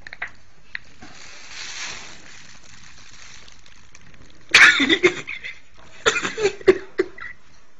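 Short bursts of a person's voice: one loud burst about halfway through, then a quick run of shorter ones a second or so later, over a quiet room.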